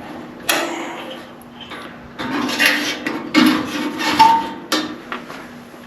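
Several sharp metal clinks and knocks as a ground wire's terminal is worked off a broken bolt on a garden tractor.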